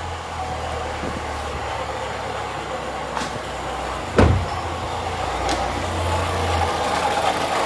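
2016 Chevy Cruze's turbocharged engine running just after start-up, with a steady metallic rubbing, fan-like noise that the mechanic traces to the turbocharger and takes for a failing turbine wheel inside it. A single sharp thump sounds about four seconds in.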